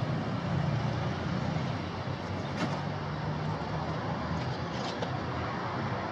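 Busy city street ambience: a steady traffic rumble with a motor vehicle's engine hum that fades about two seconds in, and one brief click near the middle.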